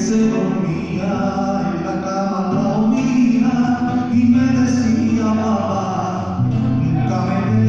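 Male singer singing a ballad live into a microphone with band accompaniment, holding long sustained notes over a steady bass line.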